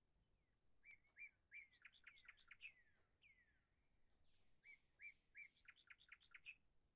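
Faint birdsong: a small bird singing two short phrases of quick, repeated chirps, the first about a second in and a similar one near the end.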